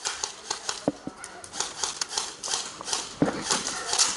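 Quick, even footsteps crunching on rough ground, about three a second, with gear rustling.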